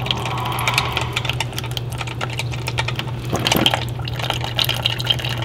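Cuisinart single-serve coffee maker brewing: a steady hum from the machine as a thin stream of coffee pours and spatters into a paper cup.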